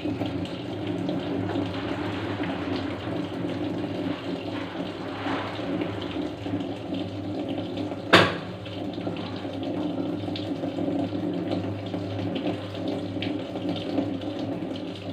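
Toshiba washing machine taking in water: water running into the drum over a steady mechanical hum, with one sharp knock about eight seconds in. The repairer traces the machine's noise and failure to a faulty drain motor.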